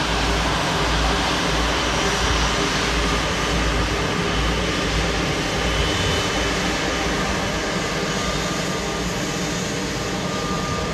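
Jet airliner engines running, a steady rushing noise over a low rumble with a faint high whine.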